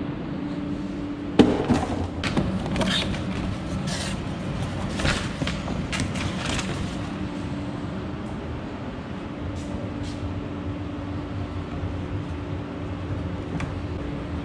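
A sharp knock about a second and a half in, then a run of clicks, knocks and rustles for about five seconds as large tractor air filter elements are handled, over a steady hum with a low steady tone.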